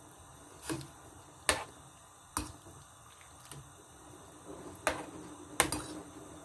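Metal ladle knocking against the inside of a stainless steel soup pot while stirring: five sharp clinks, unevenly spaced, over a faint steady hum.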